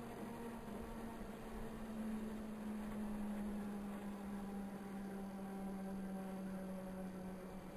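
Bell 206 helicopter's turbine engine winding down after shutdown: a faint whine sliding slowly down in pitch.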